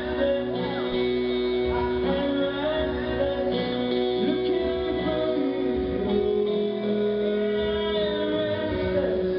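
Live band music with a singer's voice and guitar, heard through the PA from within the crowd.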